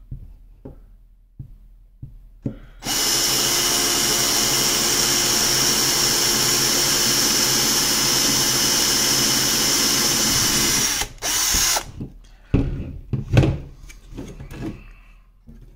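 Titan power drill running steadily for about eight seconds as it bores a small pilot hole through a Perspex sheet, then stopping and giving one short second burst. A few sharp knocks follow as the drill and sheet are handled.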